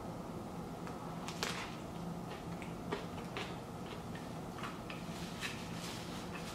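Chewing and mouth sounds from eating an Italian sub sandwich: a scatter of short clicks and crunches, the loudest about one and a half seconds in, over a steady faint hiss and low hum.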